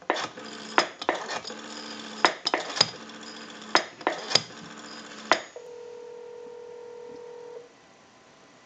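Rotary dial of a brass elephant telephone being dialed, heard as a run of sharp clicks on the line for about five seconds. The clicks are followed by one steady tone lasting about two seconds, the ringing tone of the called number.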